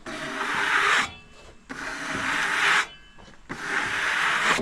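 Three long, even rasping strokes across freshly sawn red cedar, like sawdust being brushed off the cut face of the log, each about a second long with short pauses between.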